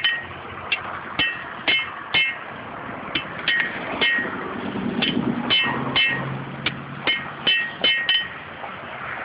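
Blacksmith's hammer striking iron on an anvil, repeated strokes at about two a second with a short metallic ring after each.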